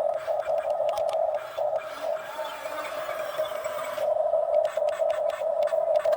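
Excavator at work: a steady high drone with sharp clanks, and a rough scraping noise for a couple of seconds in the middle.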